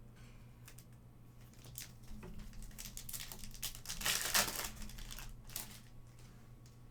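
Plastic wrapper of a trading-card pack crinkling and tearing as the pack is opened, loudest about four seconds in.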